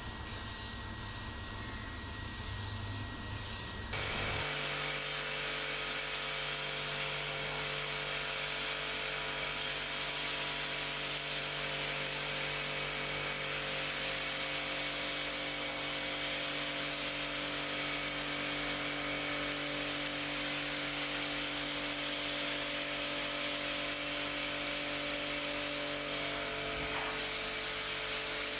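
A machine switches on abruptly about four seconds in and runs steadily, giving a constant hiss over a steady motor hum.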